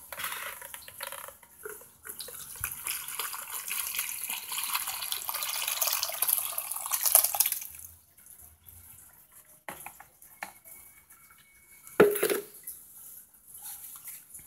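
Water with soaked cigarette butts poured from a bucket into a cloth-lined plastic basin to strain it, splashing and trickling for about eight seconds, heaviest just before it stops. A single sharp knock comes about twelve seconds in.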